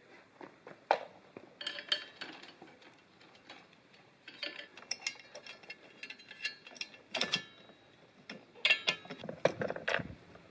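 Irregular metal clicks and clinks as a four-tooth steel blade, its cup washer and a locking rod are handled and fitted onto a brush cutter's gear head. A few of the clinks ring briefly.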